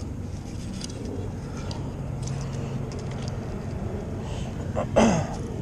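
Steady low hum of road traffic, with faint clicks and rustles of handling. About five seconds in comes one short, loud sound that falls steeply in pitch.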